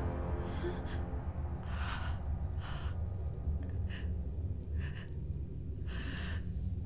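A woman's breathy gasps and sobs, about six short ones spaced roughly a second apart, over a low, steady drone.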